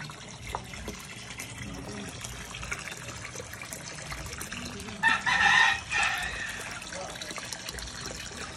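Water pouring and splashing steadily into a koi pond. About five seconds in, a loud pitched call lasting about a second, in two parts, rises over it.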